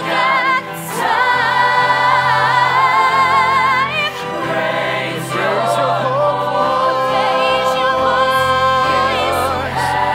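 An ensemble of singers singing a slow passage in harmony, held notes with vibrato and short breaks between phrases, over a steady low note from the accompaniment.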